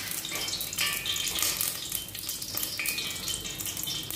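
Food in a steel pot on a gas stove sizzling and bubbling: a steady hiss with many small crackles.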